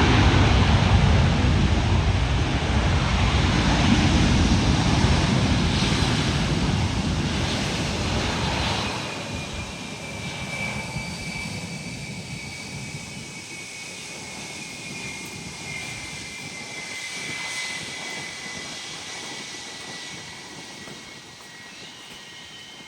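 Boeing 737 MAX 8 jet airliner's CFM LEAP-1B engines passing close by, their loud rushing noise fading steadily over about ten seconds as the aircraft moves away. A high engine whine carries on under the fading noise and drifts slowly down in pitch.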